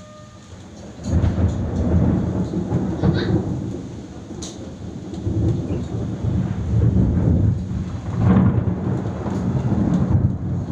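Rolling thunder: a deep rumble that starts about a second in and keeps going, swelling and easing in several waves.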